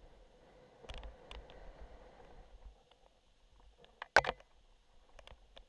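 Mountain bike riding a dry dirt trail: light tyre rumble and scattered rattling clicks from the bike, with one loud clunk about four seconds in.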